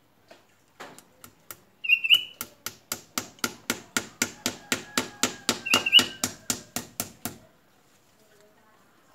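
Hammer tapping lightly and quickly against a mango tree trunk to fix an orchid in place: a few slow taps, then a steady run of about four taps a second that stops about two seconds before the end. A bird chirps briefly twice.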